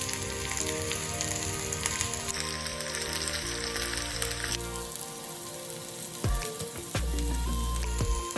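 Food frying in a pan with a steady sizzle that dies down about halfway through, over background music.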